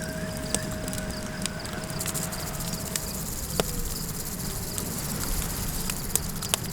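Campfire crackling with scattered sharp pops over a steady low wind rumble, with a thin steady insect chirring high above. A long drawn-out tone is held through the first half and fades out about three seconds in.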